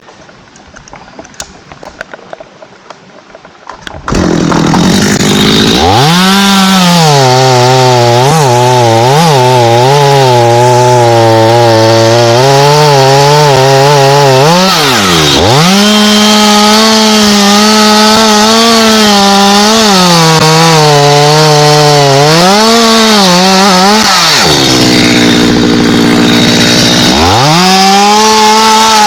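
Chainsaw comes in about four seconds in and runs loud, cutting into a thambakam trunk. Its engine pitch sags under load and rises again, with a deep dip about fifteen seconds in and another lasting a few seconds near the end.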